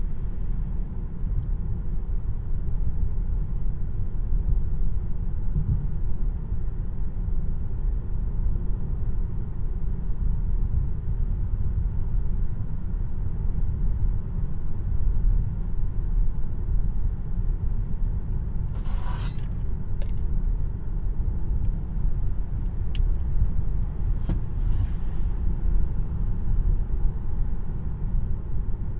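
Steady low road and tyre rumble heard inside the cabin of a 2026 Tesla Model 3 RWD electric car on the move, with no engine sound. A brief, sharper sound cuts in about two-thirds of the way through, followed by a few faint clicks.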